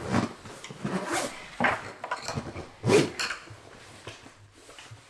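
Zipper on a backpack cooler being pulled shut in a few short strokes over the first three seconds, with quieter handling of the pack after.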